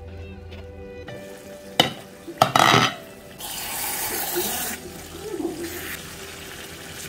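A plastic spatula stirring a thick, wet stew in a pot on the stove: wet scraping and bubbling noise, with a sharp click and a loud burst of noise a little after two seconds in. Soft background music plays underneath.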